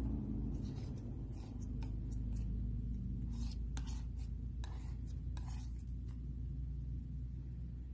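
Metal palette knife scraping and smearing thick paint across a flat surface: a series of short, soft scrapes that stop about six seconds in, over a steady low hum.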